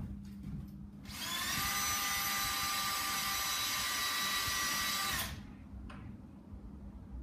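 Cordless drill run for about four seconds, starting about a second in, driving a screw into the corner of a timber frame. It spins up briefly, then holds a steady whine before stopping.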